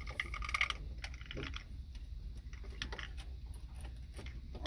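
Irregular light clicks, taps and scrapes of plastic as a corrugated bilge hose and a metal hose clamp are worked by hand onto the outlet of a plastic bilge pump, with a short scraping rub in the first second.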